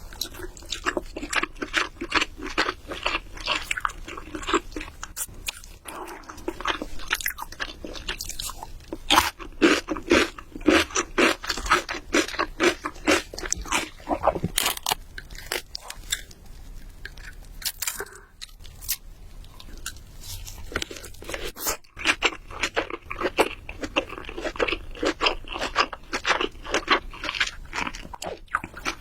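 Close-miked chewing of crunchy food: rapid, repeated crunches and bites, easing off briefly in the middle before picking up again.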